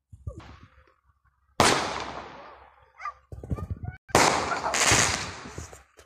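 Fireworks going off: one loud bang about a second and a half in that fades away slowly, then from about four seconds a longer run of loud blasts lasting almost two seconds.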